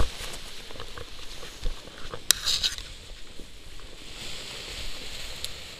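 Quiet rustling and crinkling of a paraglider wing's nylon fabric and of dry grass after landing, with a brief sharper crinkle about two seconds in.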